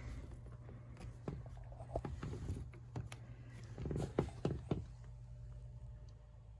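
Scattered small clicks and knocks of hands and tools handling parts at an HVAC unit's drain, a cluster of them about four seconds in, over a steady low hum.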